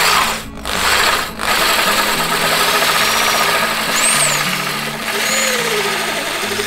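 Power drill turning a hole saw, cutting through the fiberglass and epoxy of a boat hull along a pilot hole. It stops twice briefly in the first second and a half, then runs steadily. Soft background music plays underneath.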